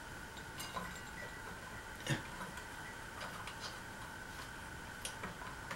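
Scattered light clicks and taps of fan parts and hardware being handled during assembly, with one sharper knock about two seconds in, over a faint steady high hum.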